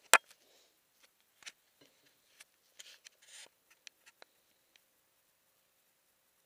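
Handling noise from a camera being moved and set down at floor level: one sharp, loud click at the start, then scattered light clicks, taps and brief rustles over the next few seconds.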